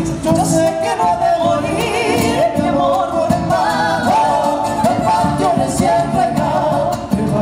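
Live Argentine folk music, a chacarera: a voice singing a wavering melody over a steady drum beat and accompaniment, played through a PA.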